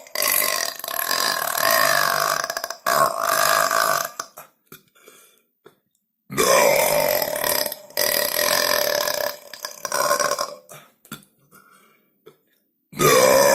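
A teenage boy burping long and loud, in drawn-out pitched belches: one that breaks off briefly a few times over the first four seconds or so, another lasting about four seconds from around six seconds in, and a third starting near the end.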